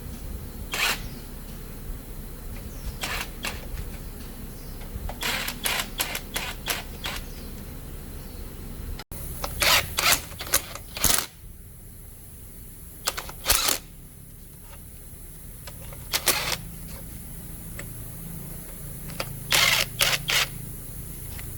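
Sharp metallic clicks and knocks of hand tools and metal parts being handled, single and in quick clusters, over a low steady hum.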